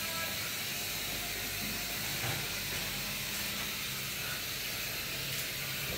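Steady hiss with a faint low hum underneath.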